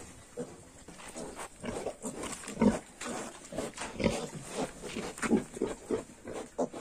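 Yorkshire pigs grunting: the sow and her 22-day-old piglets. There is a steady run of short grunts, with two louder ones in the middle.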